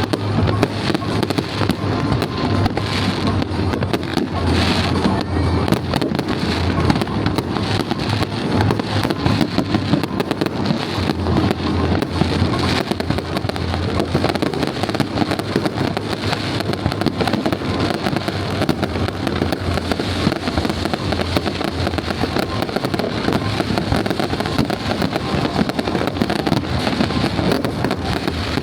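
Fireworks display: aerial shells bursting and crackling in rapid, continuous succession.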